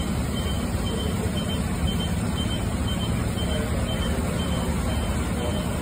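Steady low rumble of fire apparatus diesel engines and street traffic, with a faint high beep repeating about twice a second.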